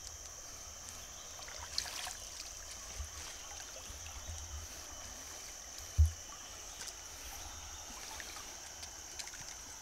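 River water trickling and flowing steadily under a constant high hiss, with a few dull knocks, the loudest about six seconds in.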